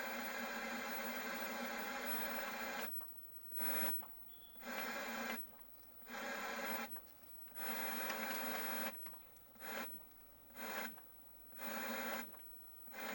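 Analogue TV static hiss. It holds steady for about three seconds, then cuts in and out in short bursts.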